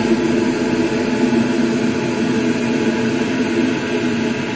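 Kitchen appliance running with a steady, loud machine hum made of a few low droning tones over a whooshing noise.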